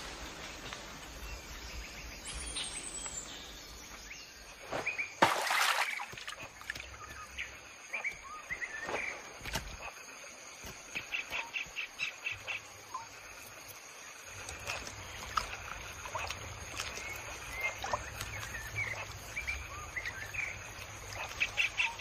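Birds chirping and calling, scattered short whistles with two quick runs of repeated notes, over a steady high-pitched drone. About five seconds in there is one brief, louder noisy burst.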